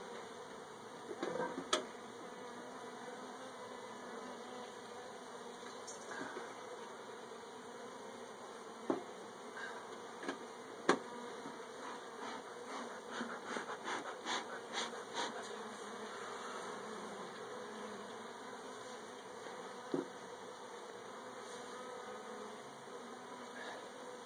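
Honeybees buzzing around an open hive with exposed comb, a steady hum. Scattered sharp clicks and knocks come through it, several in quick succession around the middle.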